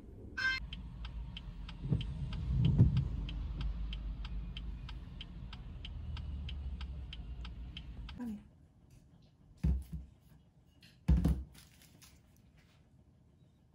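A car's turn-signal indicator ticking steadily, about three to four ticks a second, over the low hum of the car's cabin. The ticking stops about eight seconds in, and two dull thuds follow in a quiet room.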